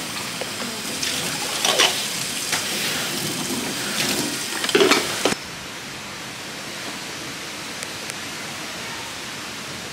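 Tap water running into a stainless steel sink while a glass and dishes are rinsed, with a few clinks and knocks as they are handled. About five seconds in the running water cuts off suddenly, leaving a quieter steady hiss.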